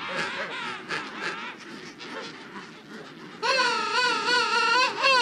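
Emperor penguin colony calling: several overlapping calls, then about three and a half seconds in one loud warbling call that lasts about a second and a half.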